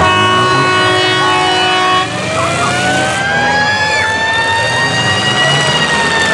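A loud horn blast of several steady tones lasting about two seconds. It is followed by a siren wailing, rising slowly in pitch and falling again, over the rumble of demolition derby car engines and crowd noise.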